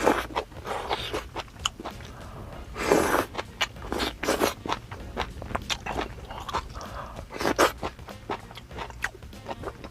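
Close-up chewing of grilled beef intestines: irregular wet smacks, crunches and clicks of the mouth, heaviest about three seconds in and again near the middle.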